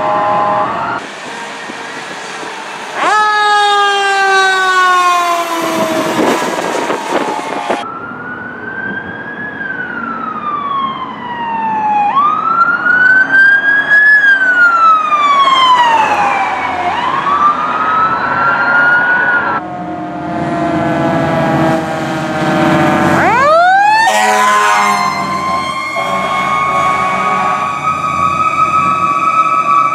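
Fire truck sirens from several passing apparatus in quick succession. One siren slides down in pitch, then one wails slowly up and down in repeated cycles. Near the end one sweeps up fast and holds a high steady pitch.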